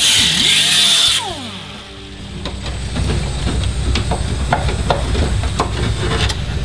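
Cutoff wheel cutting through the sheet-steel trunk pan with a high-pitched whine, stopping about a second in and spinning down with a falling pitch. Then scattered light metal clinks as the cut-out piece of floor pan is worked free.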